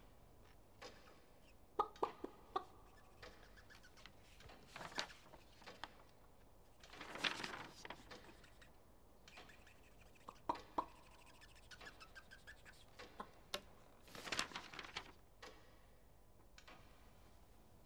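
Faint, sparse handling sounds of paper sheets: scattered small clicks and knocks, with a longer rustle about seven seconds in and another about fourteen seconds in.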